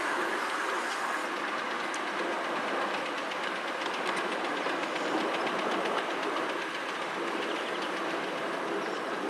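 5-inch gauge live steam locomotive, modelled on a Sandy River & Rangeley Lakes engine, hauling freight cars along the track, heard from a car of the same train: a steady rolling rush of wheels on rail with faint, rapid ticks.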